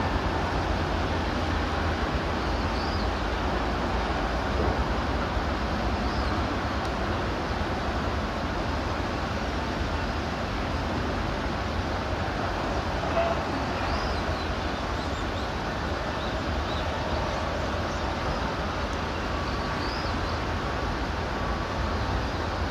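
Steady outdoor rumble, like road traffic, with a low hum underneath and a faint short high chirp every few seconds.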